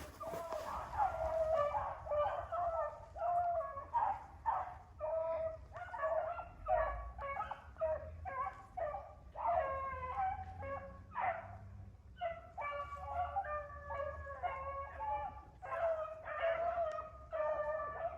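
A pack of rabbit-hunting dogs baying in overlapping voices, calls coming one after another almost without pause, with a short lull about twelve seconds in. This is the pack giving voice as it runs a rabbit's track.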